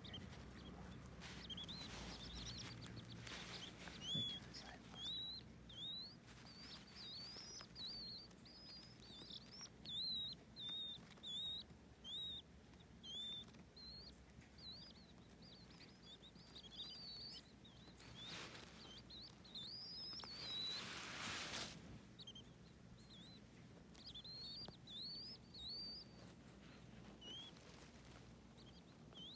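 Baby birds peeping: many short, high chirps that rise and fall in pitch, coming in quick runs, thinning out near the end. A brief rustling noise comes twice a little past the middle.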